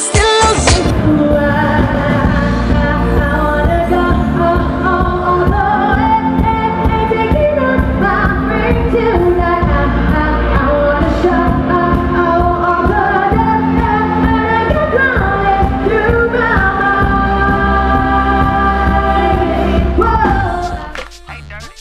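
Music with singing: long held sung notes over a steady low bass. A different recording cuts in about a second in, and the music drops away near the end.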